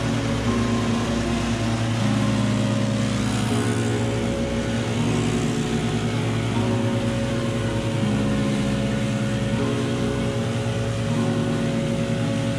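Background music with a steady chord change about every second and a half, over the continuous running of a Scag stand-on zero-turn mower's engine.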